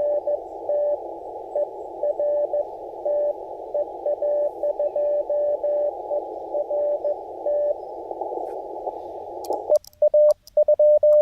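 Morse code on an amateur radio transceiver: a keyed tone of dots and dashes heard through a band of hiss, the sound of a CW signal being received through a narrow filter. About ten seconds in, the hiss cuts out and a louder, clean keyed tone with sharp clicks starts. This is the radio's own sidetone as the operator begins sending.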